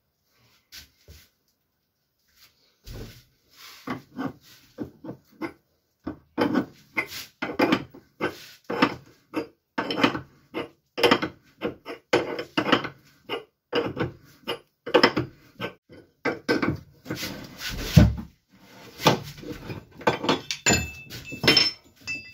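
Improvised screw puller on a Lada Priora suspension arm, a nut wound down a threaded stud against an old bearing race with a wrench, pressing out the rubber-metal silent block. Rhythmic metallic clicking and creaking about twice a second, with one heavy thump near the end and a brief metallic ringing after it.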